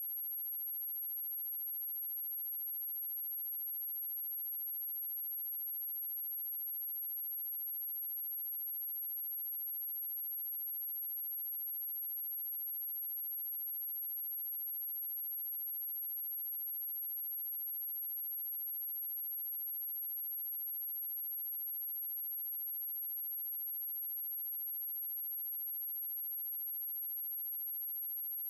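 Pure electronic sine-wave test tone at 11543 Hz, a single very high-pitched steady whistle held at constant loudness.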